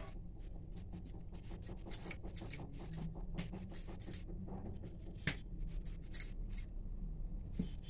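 Wooden rolling pin rolling puri dough on a marble board: a string of light, irregular clicks and knocks as the pin moves back and forth over the stone.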